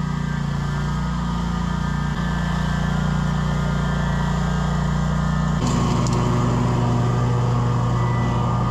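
Scag V-Ride 2 stand-on mower's engine running steadily at mowing speed with the blades cutting grass. The engine note changes abruptly a little past halfway through.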